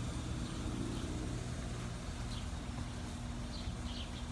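Steady low mechanical hum, with a few faint bird chirps about two and a half and four seconds in.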